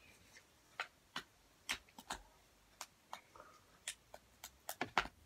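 Scattered sharp clicks and crackles, a dozen or so at irregular intervals with a few quick ones near the end, from a crunchy bead slime being handled and packed back into its plastic container.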